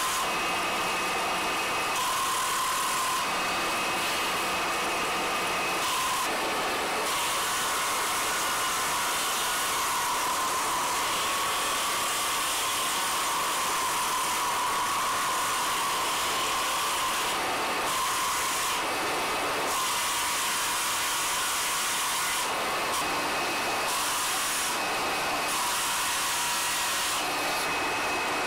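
Belt-driven stone lathe running steadily with its electric motor humming, while a hand-held cutting tool scrapes against spinning soapstone. The sound shifts in character several times.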